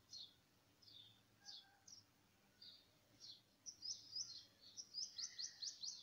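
Bird chirping: short, high, downward-sweeping chirps, a few scattered at first, then a quick run of them, about four a second, near the end.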